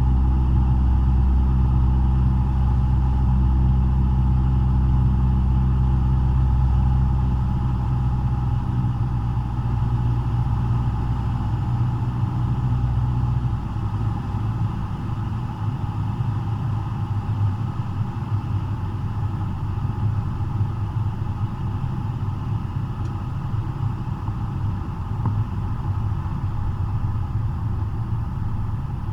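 Cessna 172's four-cylinder piston engine and propeller droning steadily as heard inside the cockpit. About 14 seconds in the engine note changes and drops a little in level, then runs on steadily.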